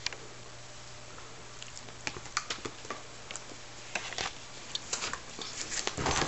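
A miniature schnauzer and a Yorkshire terrier scuffling over a toy hedgehog: scattered light clicks and patter of their paws and play. The clicks thicken about four seconds in, and there is a louder rustling bump near the end.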